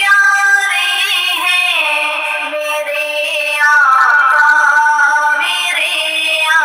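A woman's solo voice singing a naat, an Islamic devotional song, in long held notes that bend and slide between pitches.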